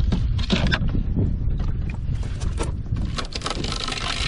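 Wind rumbling on the microphone, with bursts of splashing and sloshing water as a small live bait fish is handled over a kayak's bait tube, heaviest about half a second in and again near the end.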